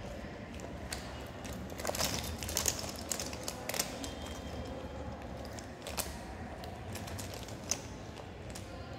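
Sketch pens being handled off to the side: scattered light plastic clicks and taps, busiest between about two and four seconds in, over a low steady background hum.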